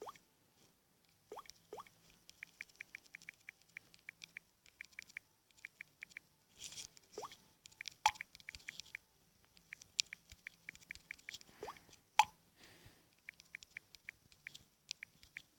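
Phone touchscreen keyboard clicking in quick runs of taps as a message is typed. A few short falling chirps and two louder pops, about eight and twelve seconds in, from the messaging app's send and receive sounds.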